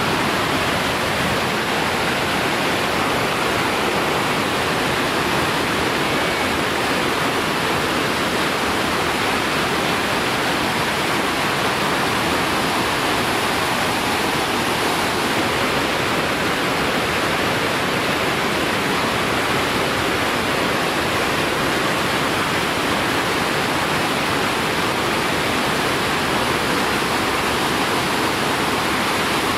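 Loud, steady rush of a large whitewater rapid, an even wall of water noise that neither rises nor falls.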